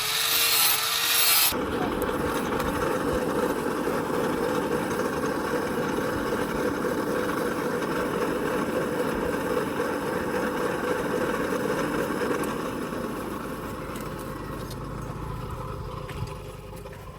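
Steady rasping scrape of a steel knife blade being shaped with an abrasive tool. A brighter hiss cuts off about a second and a half in, and the scraping fades slowly toward the end.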